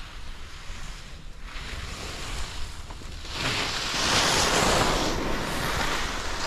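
Skis hissing and scraping over groomed snow, swelling into a louder, longer scrape through a turn from about three seconds in. Wind rumbles across the microphone throughout.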